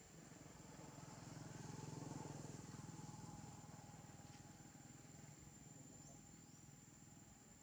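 Faint drone of a distant motor vehicle, swelling about two seconds in and slowly fading, over a steady high thin whine.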